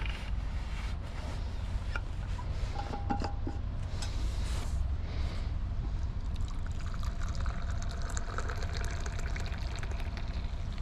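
A drink poured from a steel vacuum flask into its cup, liquid trickling and splashing as the cup fills in the second half, over a steady low rumble.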